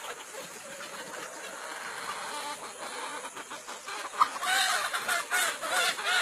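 Chickens clucking, with louder, wavering calls coming thick and fast over the last two seconds.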